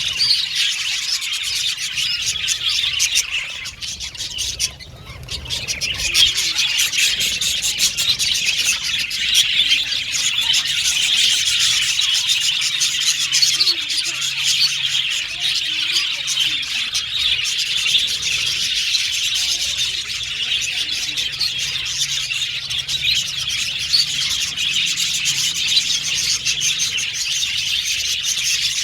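Budgies chirping continuously, several birds at once, with a brief lull about four to five seconds in.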